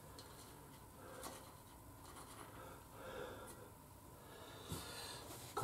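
Faint rubbing and handling noises from hands working at a motorcycle engine, with a few soft clicks, the clearest near the end.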